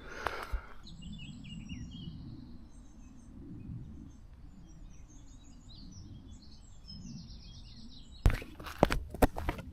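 Small birds chirping with many short, high calls over a low steady rumble. Near the end, footsteps start on the trail, sharp crunching steps.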